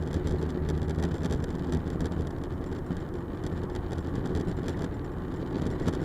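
Steady engine and road rumble of a vehicle driving along a road, with some wind hiss.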